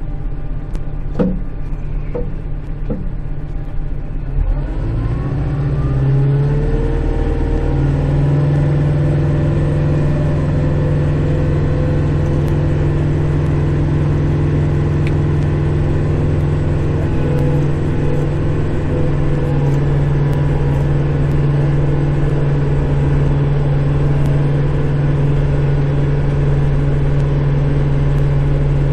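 Kubota Grand L5740 tractor's diesel engine heard from inside the cab: a few sharp clicks in the first three seconds, then the engine revs up over about three seconds and runs steadily at high revs, driving the rear snowblower.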